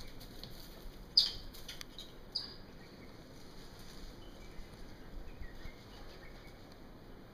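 Birds chirping: two sharp, high chirps within the first few seconds, the first the loudest, then a few fainter short chirps later on.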